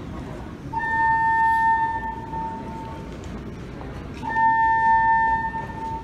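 Building fire alarm sounding a steady high tone in long blasts of about a second and a half, twice, with a pause of about two seconds between.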